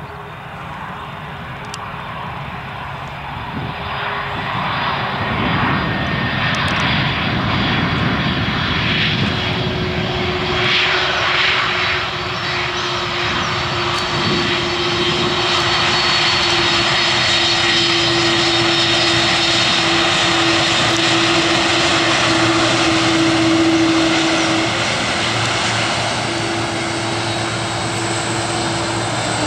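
Airbus A300-600 jet engines running loud as the airliner moves along the runway. The noise builds over the first several seconds, then holds with a steady whine through the rest.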